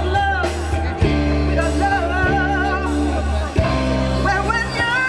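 Live rock band playing: a female lead vocal sings a wavering melody over electric bass, electric guitar and a drum kit, with steady bass notes and drum hits.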